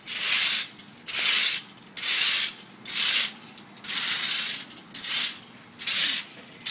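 Broom sweeping sand across a bed of upturned glass bottles in about seven even strokes, roughly one a second, each a short gritty swish.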